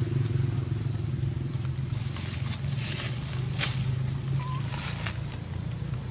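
A motor vehicle's engine running steadily, a low drone that slowly fades. There are a few brief clicks in the middle and a short, faint high squeak about four seconds in.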